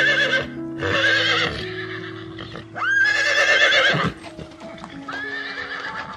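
Horse whinnying about four times, each neigh a high, wavering call lasting under a second, one of them opening with a quick rise in pitch, over background music with sustained notes.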